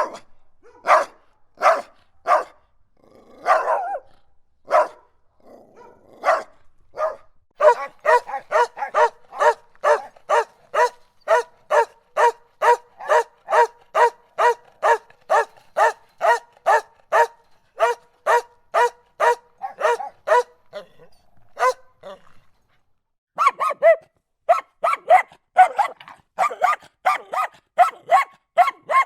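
Dog barking aggressively. Spaced-out barks at first, then a fast, even run of about three barks a second. After a break of about a second near the last quarter, the rapid barking starts again.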